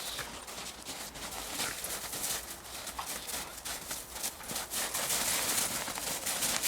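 Irregular crunching steps on the forest floor, a quick uneven patter of small crackles that grows a little louder in the second half.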